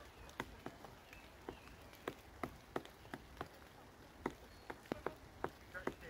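Pileated woodpecker pecking at the bark of a large tree trunk: single sharp knocks at an uneven pace, about two or three a second, not a continuous drumroll.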